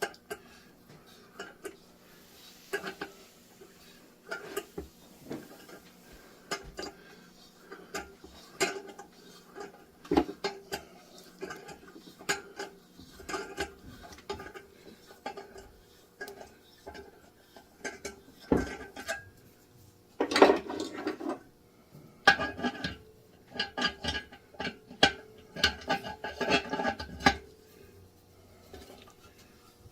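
Metal hand tools clinking and knocking against metal: irregular sharp clicks and taps with a short ring, in a louder, busier clatter for a second around the two-thirds mark and again over the following several seconds.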